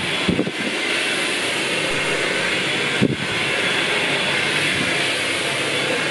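Hand-held hair dryer blowing steadily, with two brief knocks, one just after the start and one about three seconds in.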